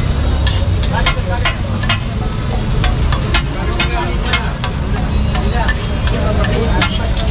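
Metal spatula scraping and clinking on a large flat iron griddle as chopped onion and egg fry in sizzling oil, with sharp taps about two or three a second. A steady low rumble runs underneath.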